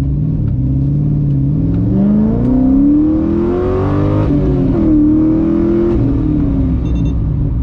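Car engine under hard acceleration from a standstill, heard from inside the cabin: the engine note climbs steadily for about four seconds, drops at an upshift, holds briefly in the next gear, then falls away as the throttle is lifted.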